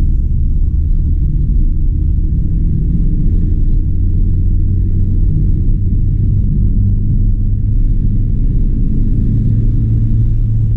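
Steady low rumble of a Fiat car's engine and tyres heard from inside the cabin while it accelerates from about 40 to 60 km/h on a wet road.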